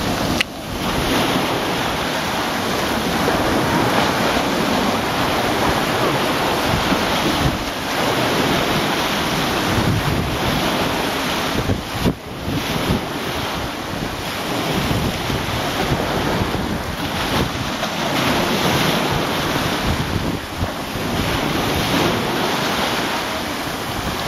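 Surf breaking and washing up a stony beach, with wind buffeting the microphone; the noise swells and eases with the waves.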